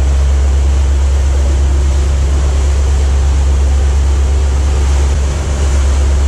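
A sportfishing boat's inboard engines running with a steady low drone, under a hiss of wind and water, heard from the flybridge helm.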